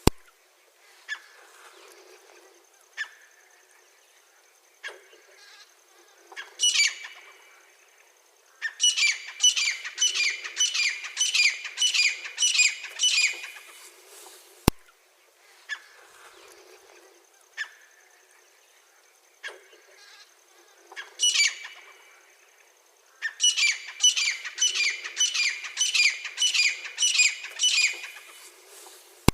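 Francolin (teetar) calling: single harsh calls a couple of seconds apart build into a loud, rhythmic series of about two calls a second lasting several seconds, and the whole pattern comes twice. A faint steady high whistle runs between the series, and a sharp click comes about halfway through.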